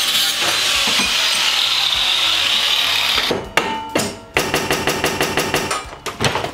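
Angle grinder cutting steel flat stock, a steady high grinding that stops a little over three seconds in. Then come a few sharp metal knocks and a brief rapid rattle of clicks as the cut piece is worked by hand.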